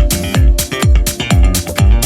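Background electronic music with a steady kick drum beat, about two beats a second.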